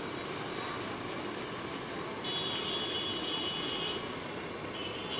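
Busy street ambience: a steady wash of traffic and crowd noise, with a high, ringing tone about two seconds in that lasts nearly two seconds.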